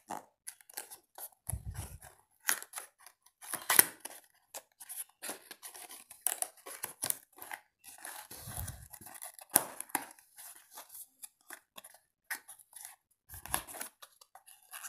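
Cardboard box and clear plastic packaging being handled and pried open: a continuous run of sharp crinkles, clicks and scrapes, with a few brief dull thumps.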